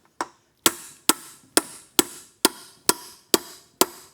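Hammer striking a pin punch to drive the dowel pins out of an Aermacchi big-bore engine case: a steady run of sharp metallic blows, about two a second, each ringing briefly.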